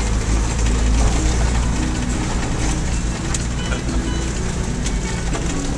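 Car driving on a rough dirt road, heard from inside the cabin: a steady low rumble of engine and tyres, with a few short rattles and knocks from bumps.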